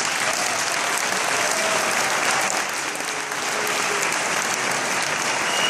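Wedding guests applauding, a dense, steady clapping.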